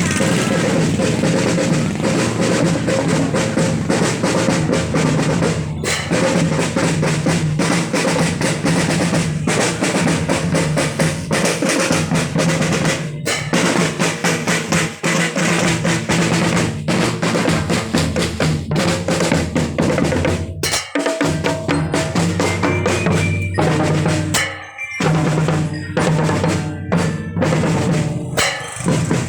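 A school marching drum band playing: snare and bass drums beating under a sustained melody line. The playing pauses briefly twice in the second half.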